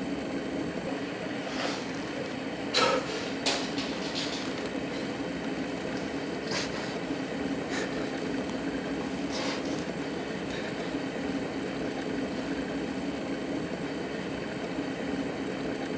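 Steady low hum with a few brief soft knocks, the loudest about three seconds in.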